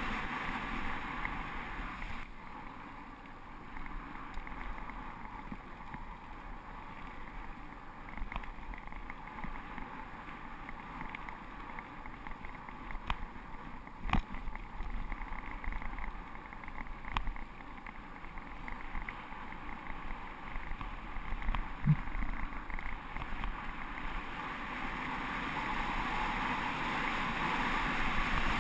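Wind rushing over a bike-mounted action camera and tyres rolling over a gravel road on a downhill run. The rush is louder at the start and builds again near the end, with a few sharp knocks from bumps in the middle.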